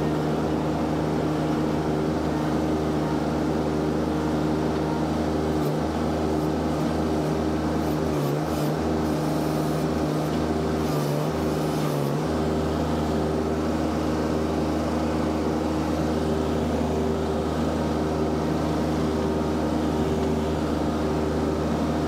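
Mini skid steer's engine running steadily while the machine carries a full firewood tote. A constant low engine hum drops out briefly a few times about halfway through.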